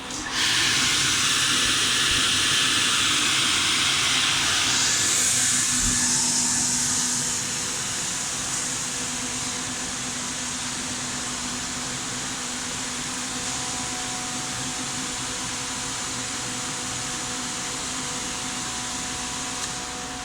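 Cleanroom air shower pass box blowing high-velocity air through its nozzles: a loud rushing hiss that starts suddenly. It is strongest for about the first seven seconds, then eases to a lower steady blow over a steady low hum from the blower fan.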